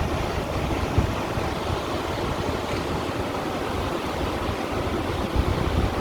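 Small sea waves washing in and splashing over shoreline stones, a steady wash of water with a few heavier low thumps about a second in and again near the end.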